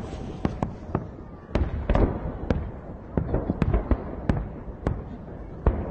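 Fireworks display shells bursting overhead: a dense, irregular series of sharp bangs, about two or three a second, with crackling between them.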